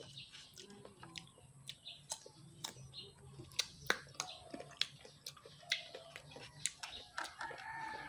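Chickens clucking faintly, with a rooster crowing near the end, over scattered sharp clicks.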